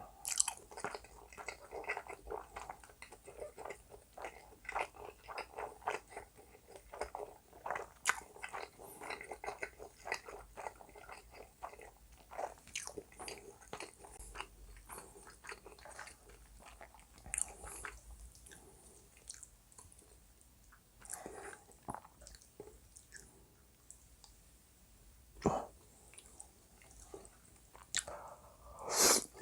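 Close-miked chewing of food, a dense run of small wet mouth clicks that thins out in the last third, with one louder mouth sound near the end.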